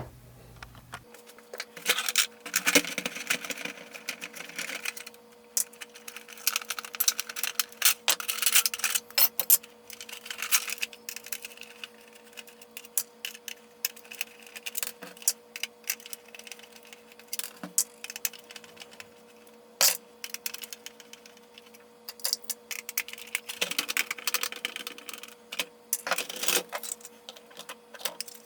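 Hard plastic parts of a vintage Kenner Slave I toy clicking, clacking and scraping as the toy is taken apart, in irregular runs of quick knocks with a few longer scraping stretches.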